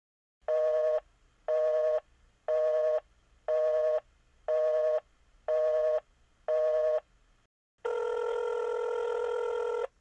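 Telephone busy signal: seven short two-tone beeps at about one per second, then a steady line tone held for about two seconds that cuts off suddenly.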